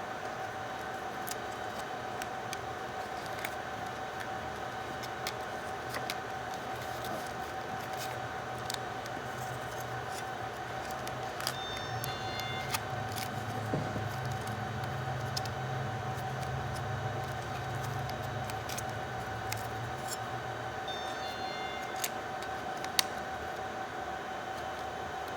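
Scattered light clicks and taps of small parts being handled, over a steady high-pitched electrical hum. A low rumble runs through the middle of the stretch.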